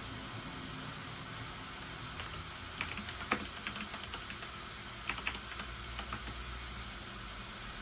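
Computer keyboard typing in short, irregular bursts of keystrokes, a few clicks at a time, over a steady low hum.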